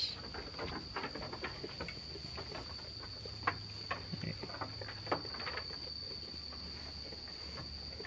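Sheep tearing at and chewing rice straw and grass at a feeder: irregular crunching and rustling of dry stalks. A steady high-pitched insect call runs underneath.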